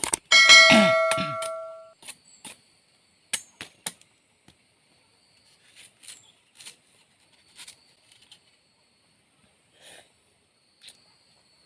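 A single metallic clang that rings on and fades out over about a second and a half, followed by scattered faint clicks and knocks.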